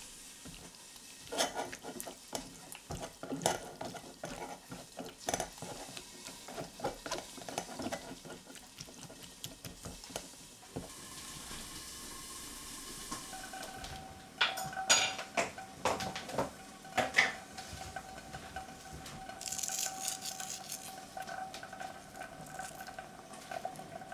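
Metal spoon pressing and scraping sauce solids through a stainless-steel mesh sieve, a run of scrapes and clinks. Past the halfway mark come a few sharp metallic knocks from the saucepan on the gas stove, and a faint steady tone sets in.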